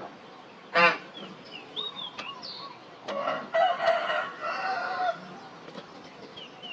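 Rooster crowing: a drawn-out call in several parts from about three to five seconds in, after a short, loud fowl call about a second in. Small birds chirp in the background.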